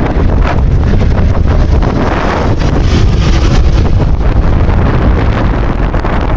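Heavy wind buffeting on the microphone, a loud low rumble with a rushing noise that swells about two and a half seconds in.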